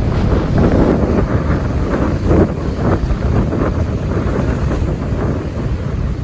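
Strong wind buffeting the microphone over the rush of a stormy sea's surf, with a stronger gust about two and a half seconds in.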